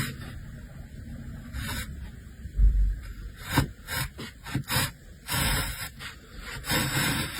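Hand tool scraping across wood in a series of irregular strokes, some short and some drawn out, with a dull thump about a third of the way in.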